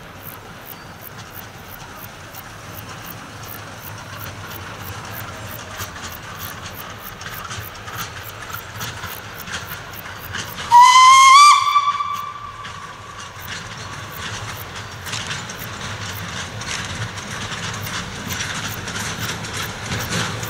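Steam whistle of the Blanc-Misseron 020+020 (0-4-4-0) Mallet tank locomotive No. 101, one blast of about a second about halfway through, its pitch rising slightly as it opens. Afterwards the narrow-gauge steam train's running grows louder as it approaches.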